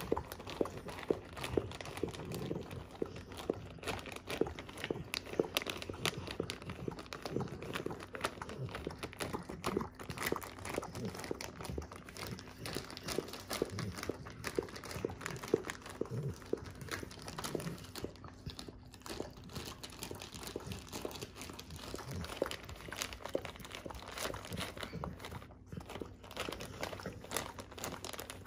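A pit bull licking peanut butter off a plastic bag: a rapid, irregular run of licks with the plastic crinkling under its tongue.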